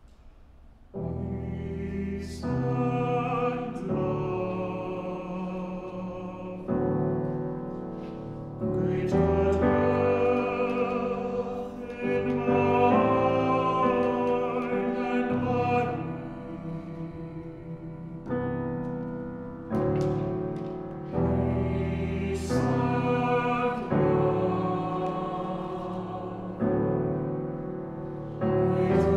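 Mixed choir singing slow, held chords in a contemporary classical piece. New chords enter together every two or three seconds and fade a little as they are held. The singing begins about a second in, after a brief quiet.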